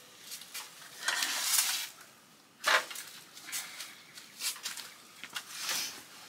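Fiberglass stepladder being shifted and set down on ground fabric: several scrapes and rustles, with a sharper clatter about two and a half seconds in.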